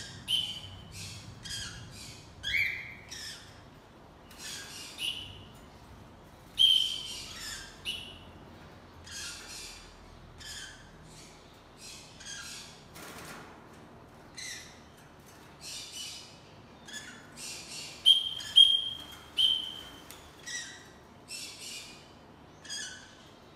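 Red-rumped parrot in a yellow colour form giving a long series of short chirping calls, one every half second to a second, some with a clear whistled note. A few louder calls come in quick succession near the end.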